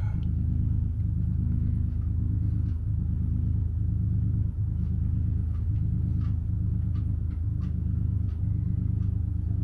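Steady low mechanical hum, like an engine or machine running, with a few faint ticks.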